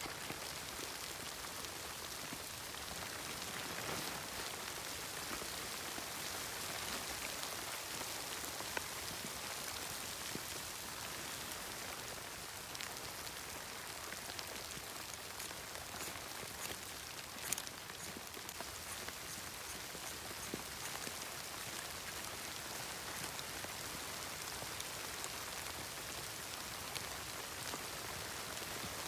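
Steady pattering of falling precipitation on a surface, a dense even hiss dotted with small ticks, with one sharper tick a little past the middle.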